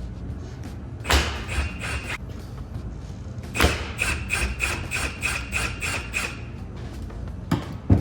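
Impact wrench running E10 star bolts out of a power steering rack housing. It goes in two runs of hammering with a high whine, a short one about a second in and a longer one from about halfway that pulses a few times a second. Two sharp knocks follow near the end.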